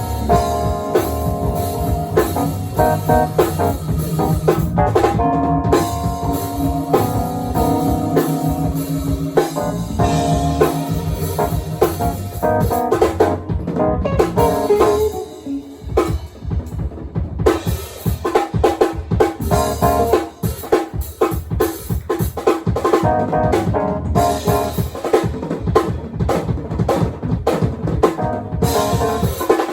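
Live band playing instrumental funk/jazz-fusion: drum kit with kick, snare and rimshots under bass and keyboard or guitar notes. About halfway through, the held notes thin out and the drums carry the music with dense hits.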